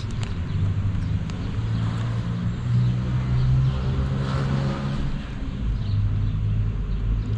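Low, steady rumble of city street traffic, with a vehicle passing about four to five seconds in.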